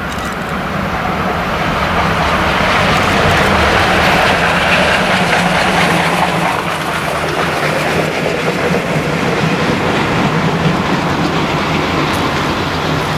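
Class 86 steam tank locomotive with a short freight train of a tank wagon and an open wagon rolling past on the rails. The sound grows louder over the first few seconds and then holds steady while the train goes by.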